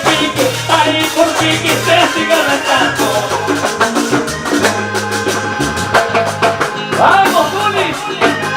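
Latin-style song music with a steady beat, a repeating bass line and shaker-type percussion.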